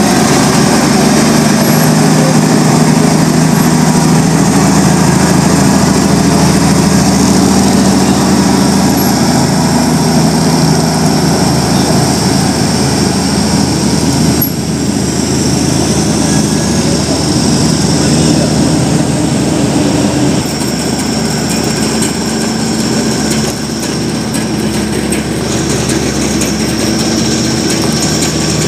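Diesel engine of a heavily loaded Fuso tronton truck labouring up a steep grade in a low gear. It makes a loud, steady drone that holds its pitch, dropping a little in level partway through.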